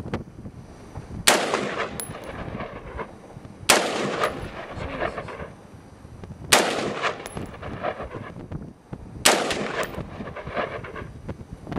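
AR-15 rifle fired four single shots, about two and a half to three seconds apart, each sharp crack trailing off in a short echo.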